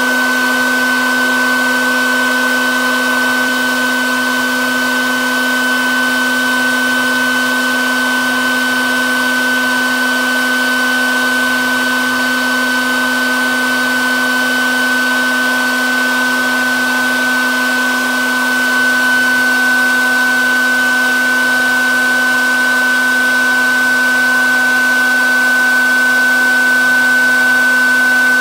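Bee vacuum running steadily as its hose sucks honeybees off exposed comb: a constant motor hum with a steady high whine over it.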